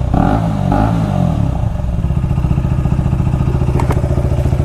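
KTM 250 Duke single-cylinder engine blipped lightly a couple of times, then settling into a steady, evenly pulsing idle.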